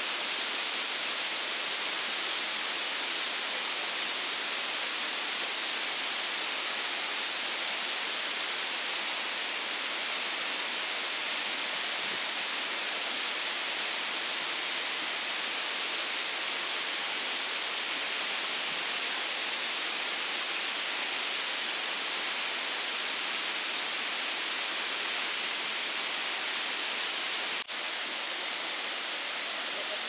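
Fukuroda Falls, a large multi-tiered waterfall, rushing down its rock face in a steady, unbroken noise of falling water. Near the end there is a brief click, and the sound becomes slightly quieter and duller.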